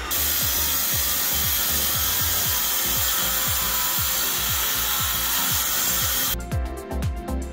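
Corded hand-held concrete saw cutting through a concrete foundation wall, a loud steady grinding hiss that cuts off suddenly about six seconds in.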